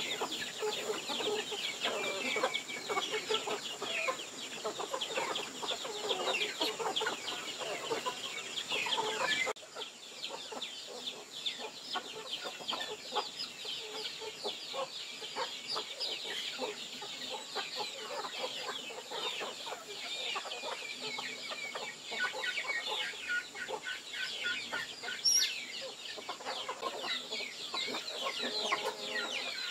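A flock of chickens, hens and roosters with young chicks, clucking continuously as they feed.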